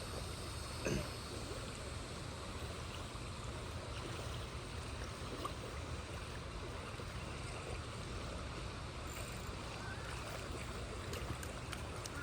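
Steady rush of flowing water with a constant low rumble.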